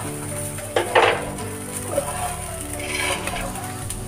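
Background music with steady held notes, and a short clatter of a frying pan and spatula about a second in as the pan is handled; a smaller clatter comes near the end.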